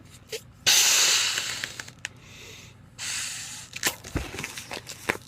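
A latex 350 twisting balloon bubble popped on purpose, a sharp bang about a second in followed by a fading hiss. Later come another rush of noise and a run of small clicks and rubs as the latex is handled.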